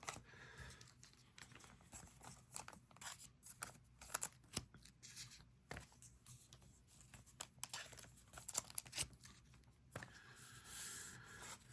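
Faint handling of trading cards and a foil booster-pack wrapper: scattered light clicks and taps, with a denser crinkling rustle near the end.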